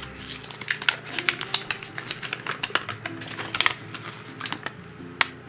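Folded paper instruction leaflet being handled and unfolded: a run of quick, sharp paper crackles and rustles.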